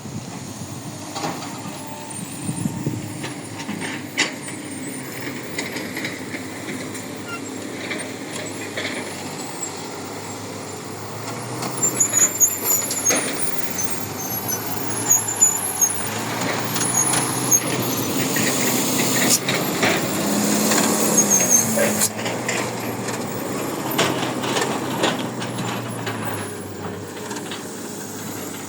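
Heavy diesel mining machinery running, its engine note swelling and easing several times, with sharp metallic knocks and short high squeals. It gets louder about twelve seconds in.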